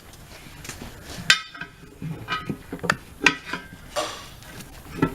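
Irregular metallic clanks and knocks, about half a dozen over a few seconds, from tire tools against the steel wheel and tire-changing machine as the tire is worked loose from the wheel.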